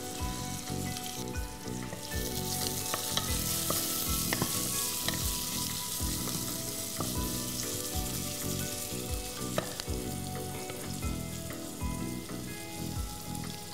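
Sliced onions sizzling as they fry in a pressure cooker, stirred and turned with a wooden spoon; the sizzle swells about two seconds in and then holds steady.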